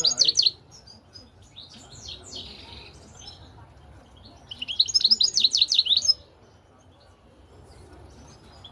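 Male European goldfinch singing in bursts of fast, high twittering: a short phrase at the start, a softer one about two seconds in, and a loud, longer burst from about four and a half to six seconds.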